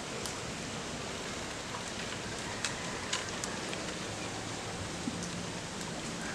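A steady outdoor hiss with a few light snaps and rustles as leaves are picked by hand from leafy garden plants.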